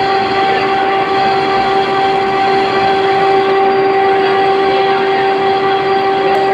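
Metal lathe running in a machine shop: a steady whine held at one pitch over an even mechanical hum, with no change in speed.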